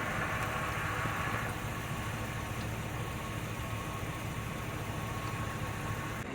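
Steady hum of a car's engine and road noise, heard from inside the car.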